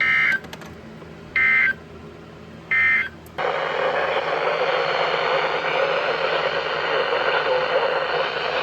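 Emergency Alert System end-of-message code: three short bursts of warbling two-tone data about a second and a half apart, marking the end of a NOAA Weather Radio alert. About three and a half seconds in, a steady radio static hiss sets in.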